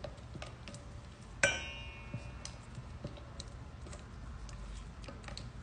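Faint scattered clicks and taps of a utensil stirring clear glue and detergent in a container, with one sharper ringing clink about a second and a half in.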